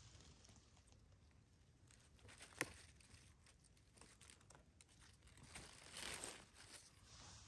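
Faint crackling and rustling of dry fallen leaves as a hand handles a freshly picked porcini mushroom and lays it down on the leaf litter. There is one sharp tick about two and a half seconds in and a brief rustle about six seconds in.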